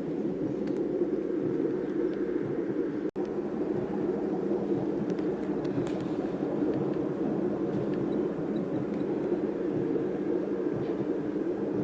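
Baby white noise machine playing a steady, low rumbling noise track, cut off for an instant about three seconds in.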